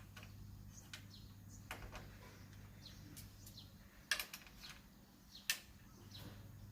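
Quiet ambience with birds chirping faintly and a low hum, broken by two sharp knocks about four and five and a half seconds in.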